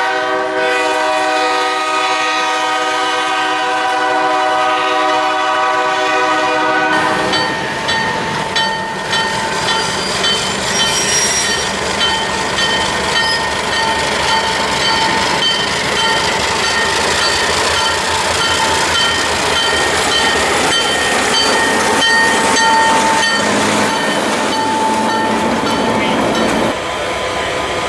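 A locomotive air horn sounds one steady chord for about the first seven seconds as freight hopper cars roll past. The horn then stops and the rolling train takes over: steel wheels clattering over rail joints, with a passing diesel locomotive and some wheel squeal.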